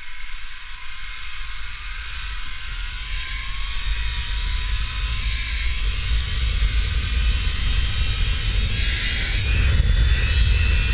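Zipline trolley's pulleys running along the steel cable, a whir with a faint whine that rises slightly in pitch as it picks up speed, under wind buffeting the microphone. The whole sound grows louder as the ride speeds up.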